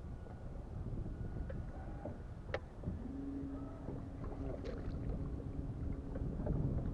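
Wind buffeting the microphone in an open fishing boat, a steady low rumble. There is a sharp click about two and a half seconds in, and then a steady low hum that holds to the end.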